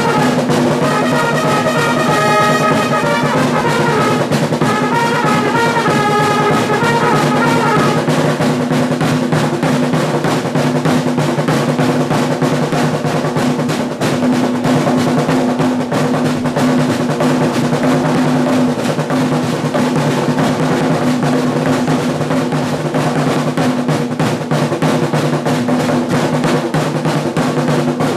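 Trumpets sounding a fanfare over a massed corps of snare drums; the trumpets stop about eight seconds in and the drums keep on drumming.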